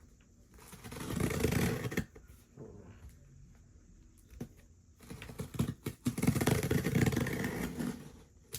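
Knife slicing through a cardboard box and its packing tape, a rough scraping and tearing in two strokes: one about a second in, a longer one from about five seconds in until near the end, with a few light clicks between.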